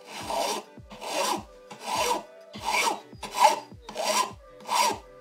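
A large hand file rasping across the edge of a small piece of sheet silver in steady, evenly paced strokes, about seven of them, roughly one every two-thirds of a second. The filing is taking down the metal's sharp edges and corners.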